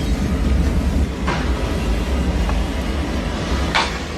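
A steady low rumble of a heavy vehicle or machine, with two short hissing bursts, one about a second in and one near the end.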